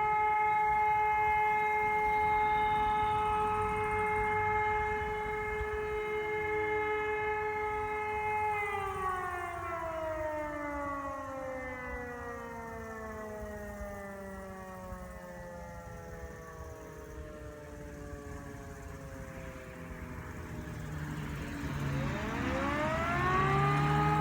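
Civil defence siren sounding its monthly test alarm: a steady wailing tone that, about eight seconds in, slowly winds down in pitch for some twelve seconds, then rises again to full pitch near the end.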